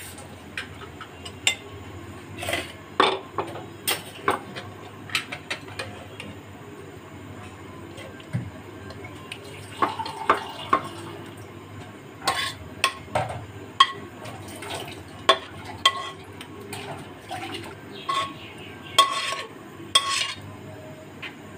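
Metal spoon clinking and scraping against a metal cooking pot and a steel serving bowl as egg curry and whole boiled eggs are spooned out, in irregular clinks that come thicker in the second half.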